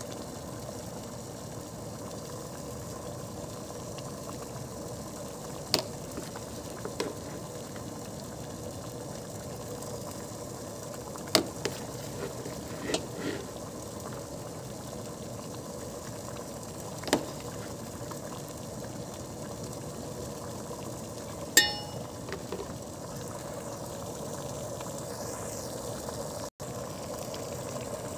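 Scattered sharp clinks and taps of tableware over a steady background hiss. The loudest clink, about three quarters of the way through, rings briefly.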